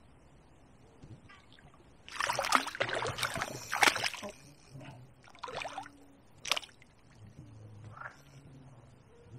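Water splashing as a hooked tench thrashes at the surface and is drawn into the landing net at the margin: about two seconds of heavy splashing, then two shorter splashes and a faint one.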